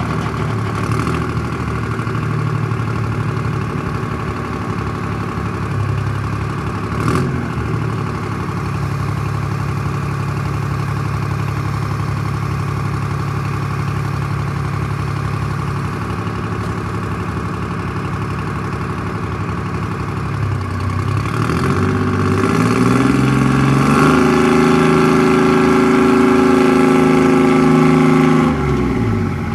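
Nodwell 240U tracked carrier's engine idling steadily. About two-thirds of the way in it revs up and holds at higher, louder revs for several seconds, then drops back just before the end.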